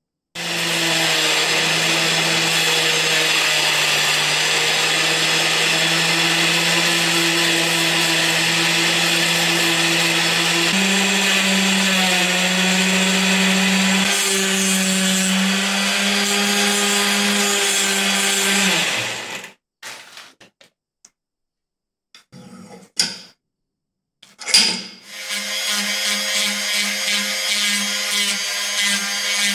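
Rotary tool on a flexible shaft spinning a sanding drum against a small metal part: a steady high motor whine that steps up in pitch about eleven seconds in. It stops a little before the twenty-second mark, gives a few brief spurts, then runs steadily again for the last few seconds.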